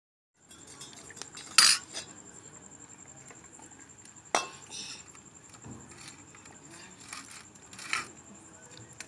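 Spoon clinking against a dish while eating: a few sharp clinks spread across several seconds, over a faint steady high-pitched tone.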